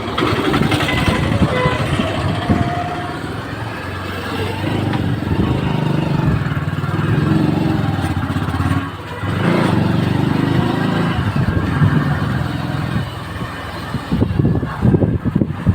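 Vehicle running on the road, a steady rumble with traffic noise, turning rougher and more uneven near the end.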